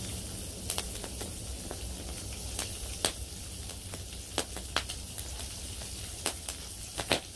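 Bacon sizzling in a small titanium fry pan set on a wood fire, with the fire crackling in irregular sharp pops.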